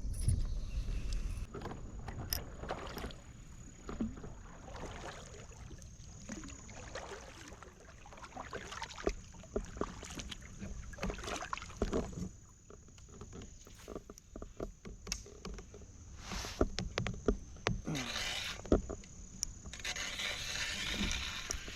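Kayak being handled on the water: scattered knocks and scrapes against the hull and swishes of paddle and water, with a longer rush of water-like noise near the end, over a faint steady high tone.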